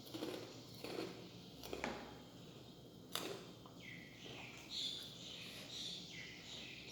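A wild bird calling three times in a row, each call a short flat note with a higher, brighter note above it, over close eating noises and a sharp click near the start.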